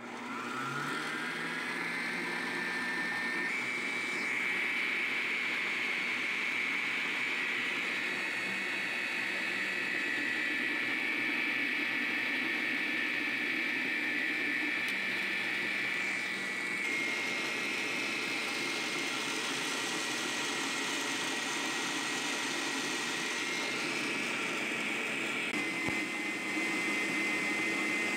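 Planetary stand mixer motor running at its lowest speed, its wire whisk beating egg whites to stiff peaks. The motor whine rises as it spins up in the first second, then runs steadily, stepping slightly in pitch a few times.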